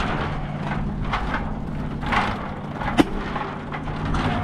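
Wind buffeting the microphone with the rumble of a moving bicycle under a steady low hum, and one sharp click about three seconds in.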